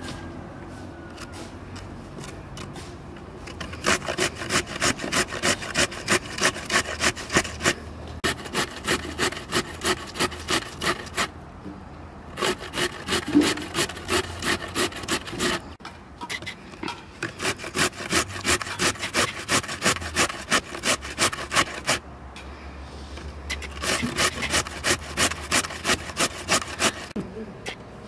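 Rhythmic back-and-forth rasping strokes, about three a second, in four runs broken by short pauses.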